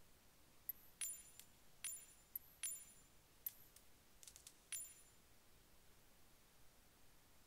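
Faint, sharp clicks and light clinks, about a dozen in the first five seconds, several with a brief high ring.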